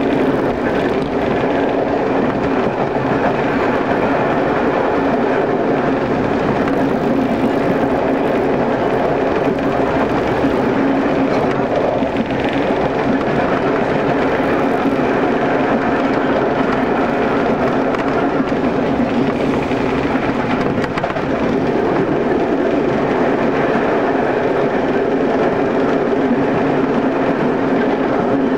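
Class 115 diesel multiple unit running at speed: a steady drone of its diesel engines mixed with the rumble of wheels on the rails.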